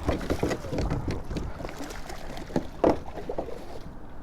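Irregular splashing and knocking of water at the side of a small paddle boat as a hooked smallmouth bass is pulled in. The sharpest knock comes about three seconds in.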